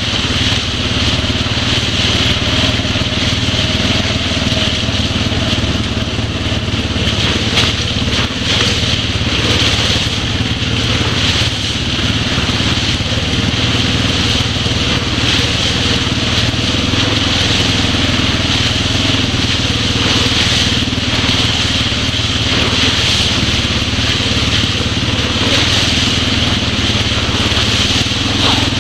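ATV engine running steadily while riding, with no big revs, and a few short knocks from the rough trail.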